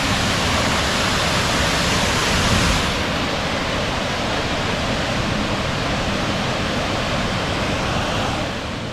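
Whangārei Falls pouring into its plunge pool: a steady, even rush of falling water, slightly duller in its top end after about three seconds.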